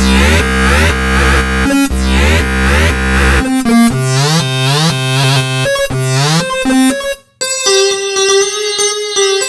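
Modern R&B-style instrumental music: synthesizer and keyboard chords over a heavy bass that drops out partway through, a brief break about seven seconds in, then held electric-piano-like chords.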